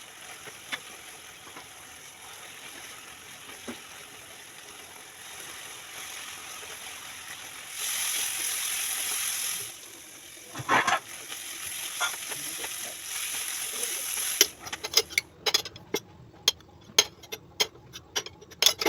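Chicken sizzling in a hot pan with a steady hiss that grows louder for about two seconds midway. In the last few seconds a rapid run of sharp clicks and scrapes comes in as the chicken is stirred in the pan.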